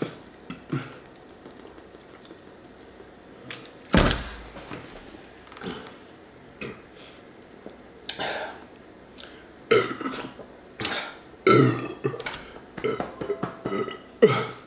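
A man burping several times in short belches in the second half, gas from gulping down a 2-liter bottle of carbonated diet soda. A single thump about four seconds in.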